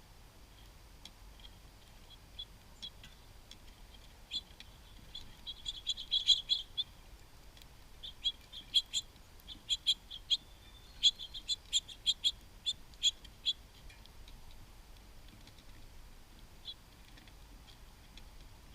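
Small birds at a feeder giving a run of short, sharp high chips and ticks, first in a quick cluster and then a dozen or so more, spaced out over several seconds.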